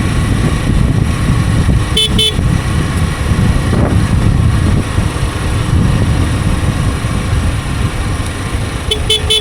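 Wind rush and engine drone of a Hero Super Splendor's 125 cc single-cylinder engine on the move, with a vehicle horn giving two quick beeps about two seconds in and again near the end.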